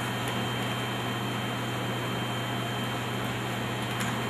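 Steady low electrical hum with an even hiss and a thin, faint high whine: background equipment noise, with a faint click about four seconds in.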